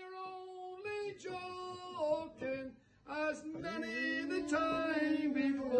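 Unaccompanied singing of a slow ballad: one voice holding long, drawn-out notes, with a short break about three seconds in.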